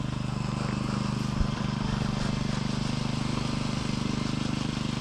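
A vehicle engine running steadily, a low pulsing hum with one small knock about a second and a half in.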